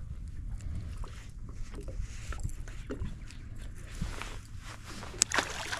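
Steady low rumble of wind on the microphone with scattered small handling clicks. About five seconds in there is a short sharp slap and splash as a small redfin (English perch) is dropped back into the water.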